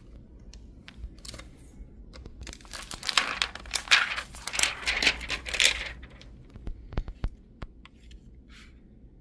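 Clear plastic protective film peeled off a MacBook Pro's keyboard deck, crinkling and crackling for about three seconds, followed by a few sharp clicks of keys being pressed.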